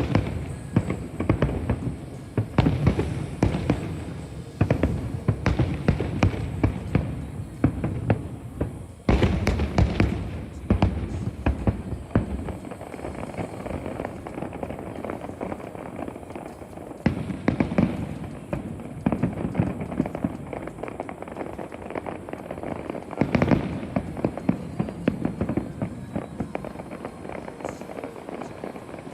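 Aerial fireworks shells bursting and crackling in rapid, overlapping volleys, with heavier clusters of bangs around 9 and 23 seconds in.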